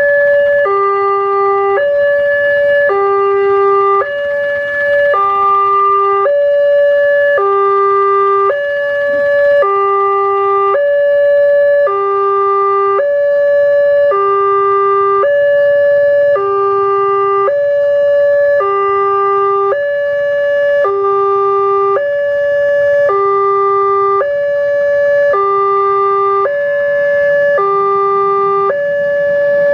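Wantech railway level-crossing warning alarm sounding a loud electronic two-tone signal, alternating between a lower and a higher tone about once a second. It warns that the barrier is closed for an approaching rail vehicle.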